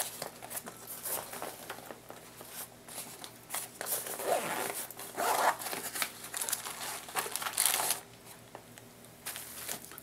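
Zipper on the front pocket of a Marmot Gunnison nylon backpack being pulled open, then irregular rustling of the pack's fabric and crinkling of wrapped packets as items are handled inside the pocket.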